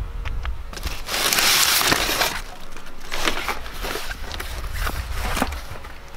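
Cardboard boxes of spray paint cans being handled and lifted from a car trunk: a loud rush of noise about a second in, then the cans clinking and knocking against each other.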